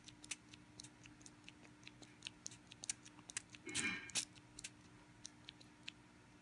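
Small plastic Beados beads clicking one by one as they are set into a plastic bead tray, a few light ticks a second at an uneven pace. About four seconds in there is a short, louder rattle.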